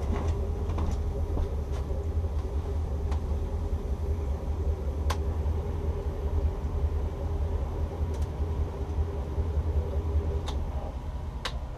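Twin 7.4-litre (454 cubic inch) GM V8 inboard engines of a Sea Ray 330 Sundancer idling with a steady low rumble. A few sharp light clicks are scattered through.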